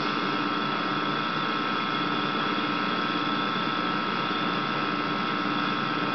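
Steady electrical hum and hiss with a few constant tones, unchanging throughout.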